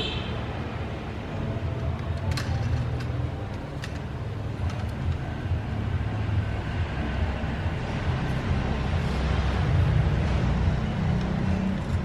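A steady low rumble of engine or traffic noise, with a few light clicks of a plastic toy wheel loader being handled.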